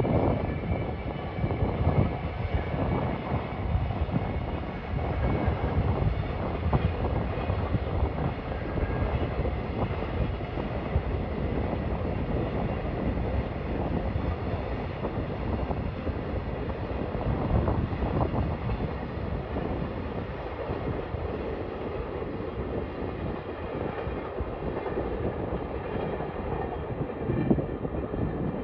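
Long container freight train hauled by a JR Freight EF210 electric locomotive passing, the wagons rolling by in a continuous steady rumble on the rails.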